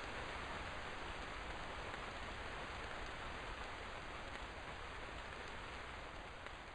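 Heavy rain falling: a steady, even hiss of rain with no separate drops standing out, easing slightly toward the end.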